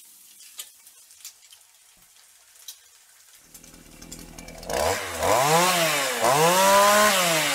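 A few faint clicks, then a chainsaw engine comes in low and is revved up and back down twice in the second half, loud, its pitch rising and falling with each rev.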